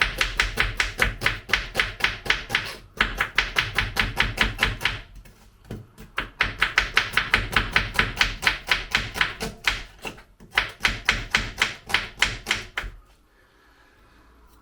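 Kitchen knife rapidly chopping an onion on a chopping board, about five strokes a second, in several runs with short breaks; it stops near the end.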